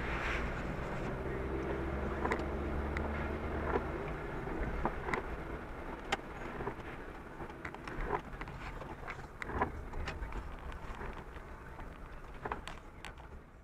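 A 2008 Honda Hornet 600's inline-four engine runs at low speed under wind noise and tyre hiss on a wet road, with scattered sharp ticks. The sound gets quieter toward the end.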